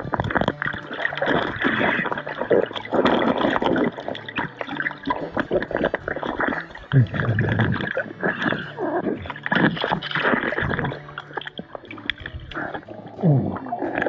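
Water gurgling and sloshing as picked up by a camera held underwater in a shallow creek, with many small irregular knocks and rustles as hands and legs move among the rocks.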